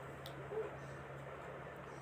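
A steel ladle stirring tomato and onion masala in a kadhai, quietly, with one short clink about half a second in, over a steady low hum.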